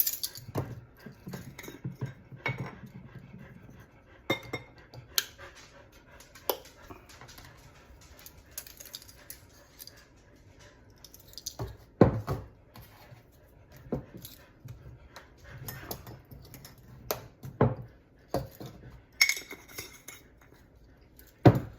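Intermittent clicks, taps and knocks of spice containers and measuring spoons being handled over a mixing bowl, with a sharper knock about halfway through and another near the end.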